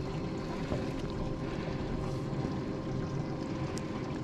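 Steady wash of wind and lapping water around a small fishing boat, with a faint steady hum underneath.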